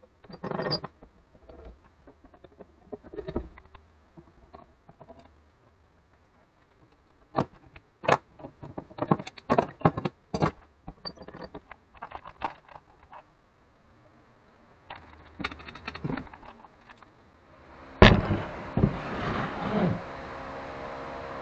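Steel pipe clamps and a bar clamp being loosened and taken off a glued-up wood panel: irregular clicks and knocks of metal on metal and wood. About 18 s in, a steady hiss sets in, with several louder knocks.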